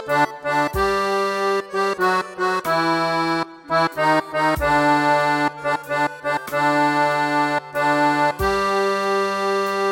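Hymn tune played as sustained chords on an accordion-like keyboard sound, the chords changing every half second to second and ending in a long held chord near the end.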